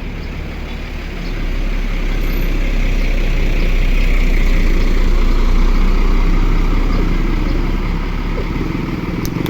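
A large bus driving past, its engine and tyre noise swelling to a peak midway and then fading.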